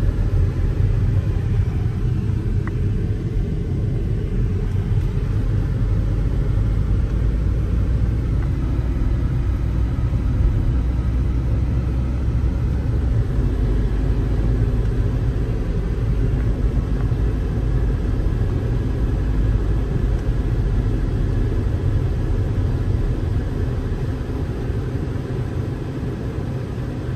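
Steady low rumble of a car's road and engine noise heard from inside the moving car's cabin, easing off a little near the end.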